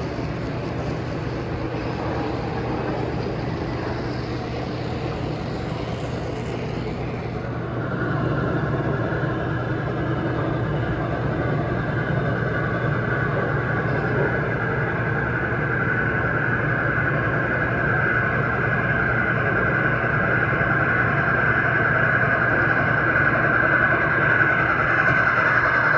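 Three-rail O-gauge model trains running on a layout: the steady sound of wheels and motors on the track, which gets louder about eight seconds in and louder still near the end as a train comes close.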